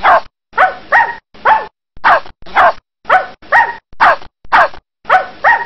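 A puppy barking repeatedly: about a dozen short barks, about two a second, each falling in pitch.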